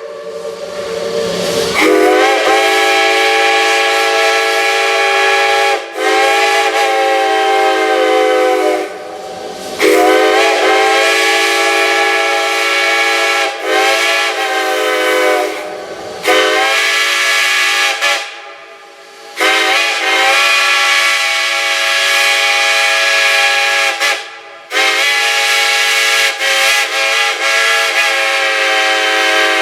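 Chime steam whistle sounding a chord of several tones, blown in about seven long blasts with short breaks between them. Several blasts slide up in pitch as they open, and a hiss of steam runs under the whistle.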